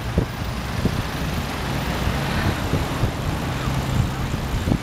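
Road traffic close by: car engines running with a low, steady drone and a rush of street noise. A few short knocks come through over it.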